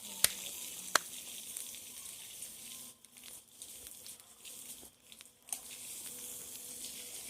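Bonfire crackling and hissing steadily, with two sharp pops in the first second.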